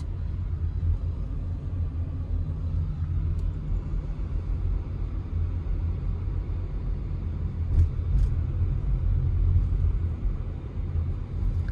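Steady low rumble of a car driving, engine and road noise with no other events.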